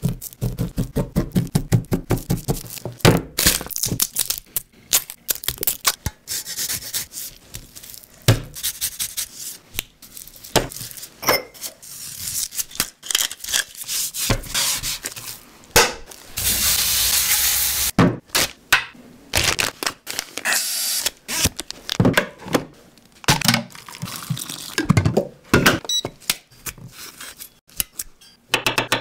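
Food preparation on a wooden cutting board: a fork stabbing a raw beef roast in a quick run of jabs, then gloved hands rubbing seasoning into the meat, and near the end a knife cutting into an avocado around its pit. Mostly short taps and thunks, with a steady hiss lasting about two seconds midway.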